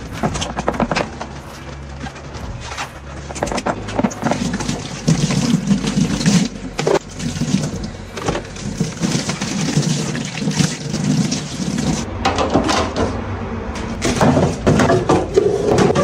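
Plastic fridge parts, an egg tray and a crisper box, being handled and set down at a kitchen sink: a run of clicks, knocks and rustling.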